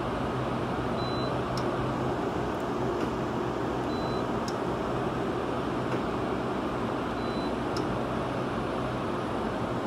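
Okuma Genos L-200EM CNC lathe running, with a steady hum and whir. A faint short high beep sounds about every three seconds.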